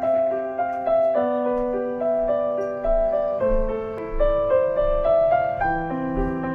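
Background music: a slow piano melody over held low notes that change every couple of seconds.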